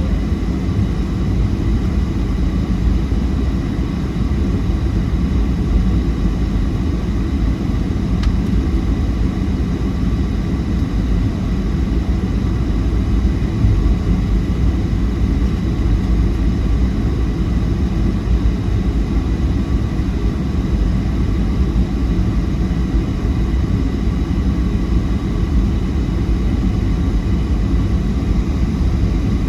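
Steady low rumble of a Boeing 737-700's CFM56-7B turbofan engines and airflow, heard inside the cabin, with faint steady high tones above it.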